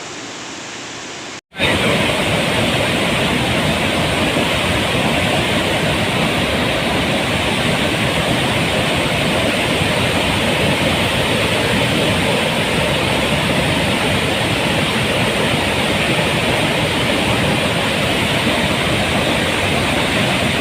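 Floodwater pouring through the open spillway gates of a dam: a loud, steady rush of water. A brief gap about a second and a half in, after which the rush is much louder.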